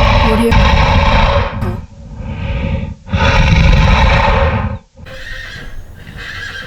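A horse neighing: two long, loud calls about a second apart, followed by quieter horse sounds near the end.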